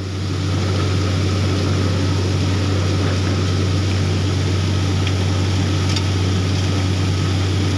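Borewell drilling rig running steadily: a heavy engine's deep, even drone with a broad hiss as water and cuttings gush out of the bore.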